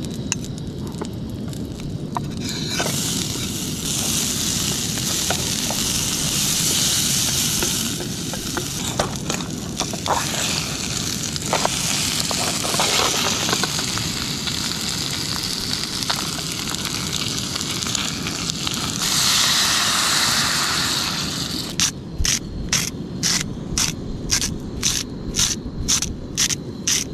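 Oil sizzling in a hot pan as whole lobsters fry in it, the sizzle swelling louder about two-thirds of the way in, over a steady low rumble. Near the end, a salt grinder being turned, with short crunches about three a second.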